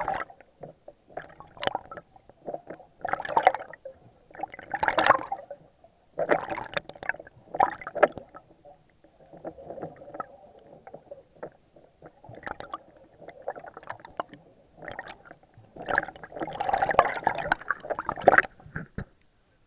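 A swimmer's strokes heard through an underwater camera: bursts of bubbling, rushing water about every one and a half seconds, with a longer, louder stretch of bubbling near the end.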